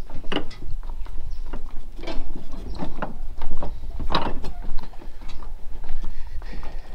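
Footsteps on wooden dock planks, the boards knocking and clattering about twice a second, over a steady low rumble.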